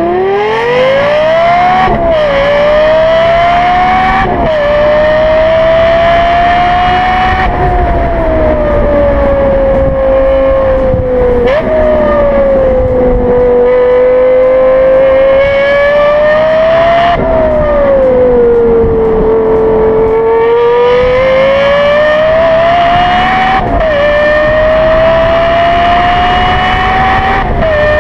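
Lexus LFA's V10 engine accelerating hard at high revs. Its pitch climbs steeply, then drops sharply at each gear change, several times over; in the middle the revs sink slowly and then build again.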